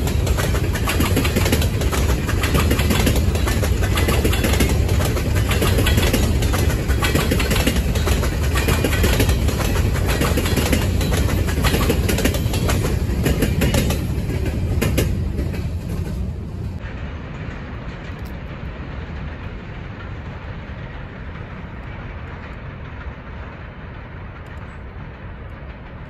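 Freight train of covered hopper cars rolling past close by, wheels clicking over the rail joints. The last car passes about fourteen seconds in, and the sound falls away to the train's fainter rumble as it moves off.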